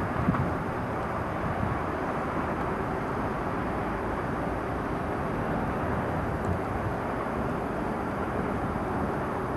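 A Soviet-built E-series metro train approaching slowly on open surface track: a steady, even running noise, with road traffic in the background.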